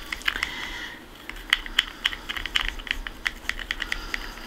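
Wooden stir stick clicking and scraping against the inside of a small plastic cup while mixing acrylic paint with fabric painting medium. The clicks are quick and light, about three or four a second.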